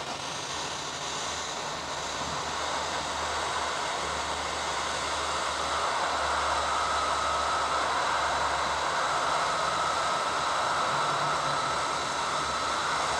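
BAKU 858A hot-air rework station blowing hot air at high airflow: a steady rushing hiss with a faint whine that grows clearer about halfway through.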